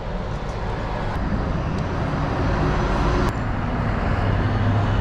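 Buses driving past one after another: engine hum and tyre noise that builds up, with an abrupt break just over three seconds in before the next bus, whose low engine note is the loudest near the end.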